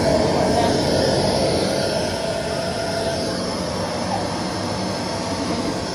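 Steady rushing of the air blower that drives a soft-play ball-launcher tower, blowing foam balls up out of its tubes.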